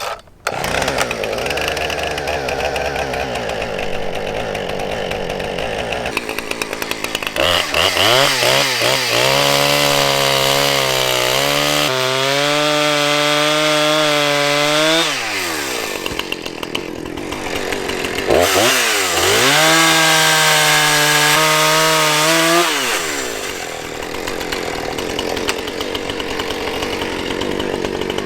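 Husqvarna Rancher 455 two-stroke chainsaw idling, then opened to full throttle twice, for about seven seconds and then about four seconds, as it cuts into a pine log. Each time the pitch sags and recovers under load before the saw drops back to idle.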